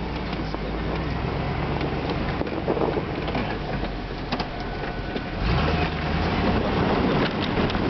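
1999 three-quarter-ton Suburban's engine running as the truck plows snow, heard from inside the cab; it grows louder about five and a half seconds in.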